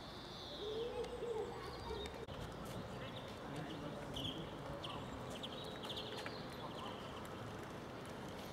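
Outdoor ambience: small birds chirping on and off over a low wind rumble on the microphone.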